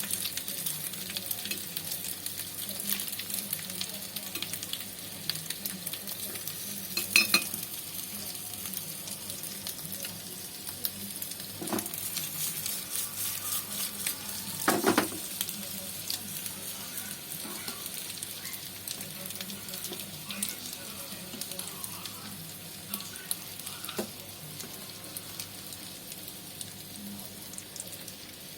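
Stuffed tofu frying in a little oil in a pan: a steady sizzle with fine crackling throughout, and a few sharp knocks of a utensil against the pan, the loudest about seven seconds in.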